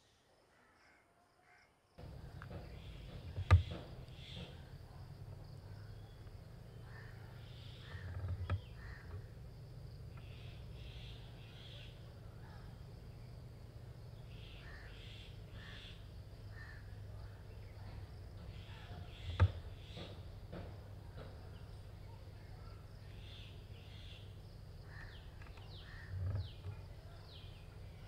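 After a near-silent start, an outdoor background begins about two seconds in: birds calling here and there over a steady low rumble. Sharp knocks come four times, the loudest about three and a half seconds in and again a little past the middle.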